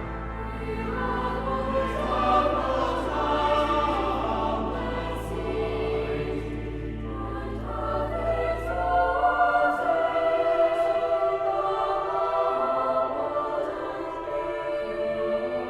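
School chapel choir singing a sacred piece in several parts, with a low held bass note underneath that drops out about nine seconds in.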